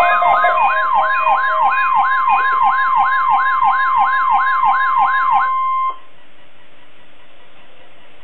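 Weather radio alert tone: a steady tone near 1 kHz, the NOAA Weather Radio attention signal, under a repeating falling siren sweep about three times a second. It cuts off suddenly about six seconds in, leaving a steady radio hiss.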